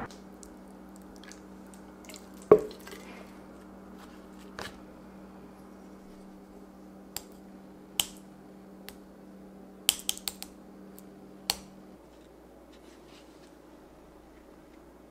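A single sharp thump on a wooden cutting board as a block of set acorn jelly is turned out onto it. Scattered light clicks and taps follow, including a cluster of several together, as a wooden spoon touches the jelly. A low steady hum runs underneath and stops near the end.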